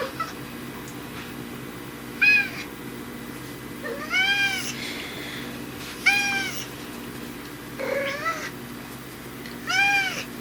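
Domestic cat meowing five times, about two seconds apart, each meow rising and then falling in pitch.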